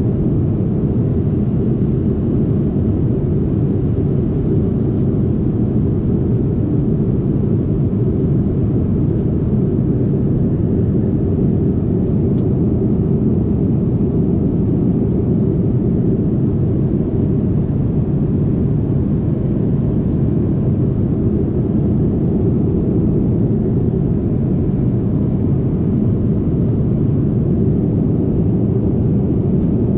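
Steady low rumble inside the cabin of a Boeing 787-9 airliner, the engines and airflow heard from a window seat, unchanged throughout.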